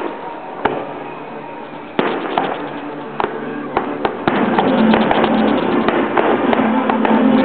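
Aerial fireworks shells bursting in sharp bangs, a second or so apart at first, then coming thick and fast from about four seconds in as the display builds. Music plays underneath, getting louder at the same point.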